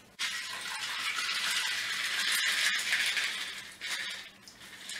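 A shaken margarita poured from a metal cocktail shaker tin into a rocks glass of ice, the liquid splashing steadily over the ice for about three and a half seconds. A few light clinks of ice and glass follow.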